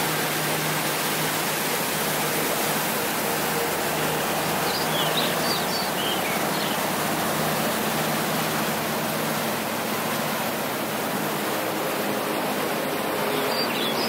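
Mountain creek rushing over boulders in whitewater rapids: a steady, even roar of water. A few short bird chirps come through about five seconds in and again near the end.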